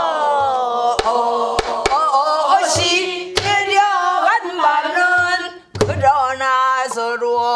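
A woman singing a danga in pansori style, holding long, wavering notes that bend and slide downward, while beating time on a buk barrel drum with a stick: sharp stick clicks and a few deep thuds. The singing breaks off briefly about two thirds in and starts again.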